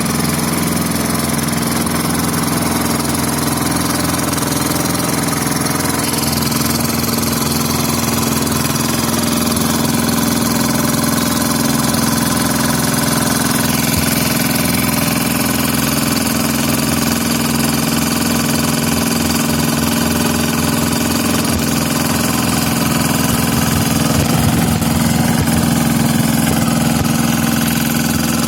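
Engine of an FVR850D vibratory road roller running steadily at an even speed.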